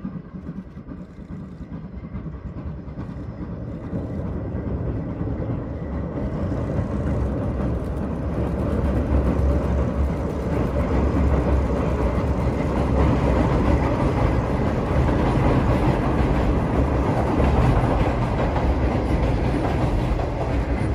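C11 steam locomotive hauling a train of passenger coaches, running steadily past. Its low rumble grows louder over the first several seconds as it approaches.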